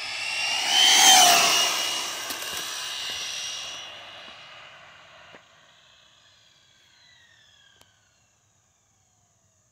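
ARRMA Typhon 6S RC buggy on a full-throttle speed run, its brushless electric motor whining as it closes in. The whine is loudest about a second in as the buggy passes, drops in pitch, and fades away down the road over the next several seconds.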